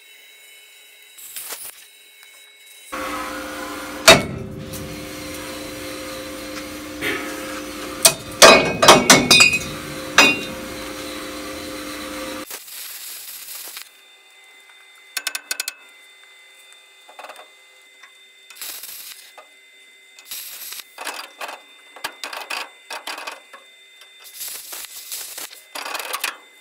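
Plasma cutter cutting through the rusted rear frame steel of a 1958 VW bus: a steady run of about ten seconds with loud metallic knocks in it. This is followed by scattered clinks and rattles of loose metal.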